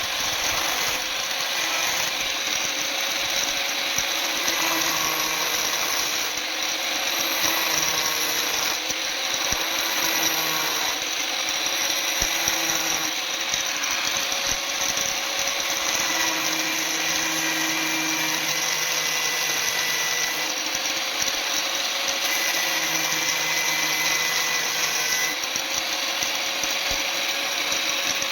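Electric power tool running continuously on the steel knife blank, a steady whine whose pitch wavers slightly as the load changes.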